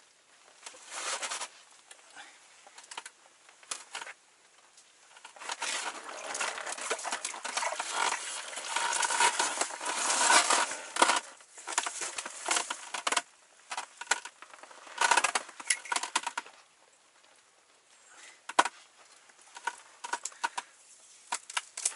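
Bursts of rustling and scuffing with light knocks and clicks as an ice angler handles his rod, line and catch. The noise is loudest about halfway through and again briefly near two-thirds of the way in.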